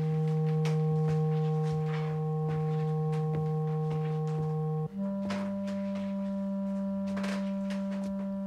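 Background film score of long held electronic tones, a low note with a few higher notes above it; the chord changes about five seconds in, the low note stepping up. Faint light clicks sound here and there underneath.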